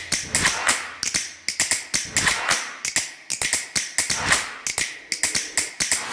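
A rapid, uneven series of sharp taps and clicks, several a second, each dying away quickly.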